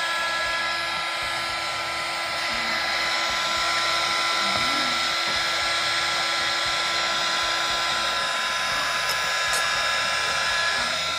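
Small handheld craft heat gun running steadily: a rush of blown air with a fixed motor whine over it. It is warming the wax surface of a freshly poured candle.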